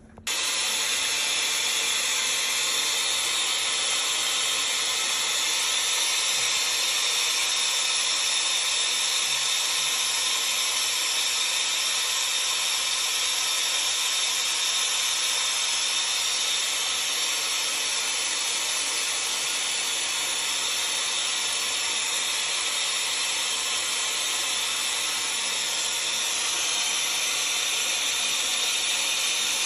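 A steady, even hiss that starts abruptly and holds unchanged.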